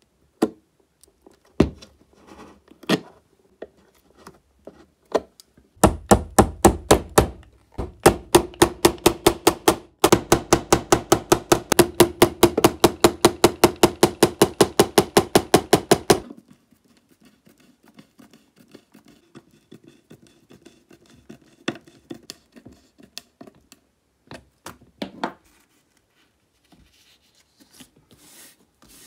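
A run of rapid, evenly spaced sharp knocks, about five a second, lasting some ten seconds with a short break partway through. Scattered single clicks and handling sounds come before and after.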